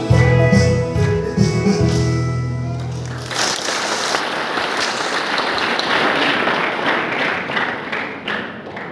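A mixed youth choir with instrumental accompaniment holds its final chord, which stops about three seconds in. Audience applause follows and slowly fades toward the end.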